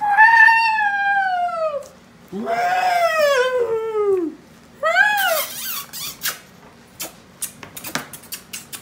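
Three long, high-pitched wailing cries: the first falls in pitch, the second rises and then falls, and the third is short. A run of light clicks and taps follows.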